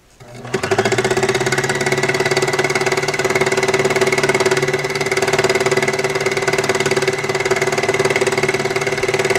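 Baby Lock Embellisher needle-felting machine starting up about half a second in, then running steadily as its barbed felting needles punch rapidly through layered fabric.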